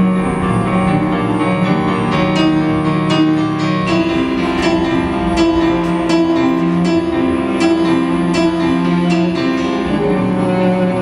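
Instrumental music: struck keyboard notes, piano-like, over sustained chords. The harmony shifts about four seconds in and again near the end.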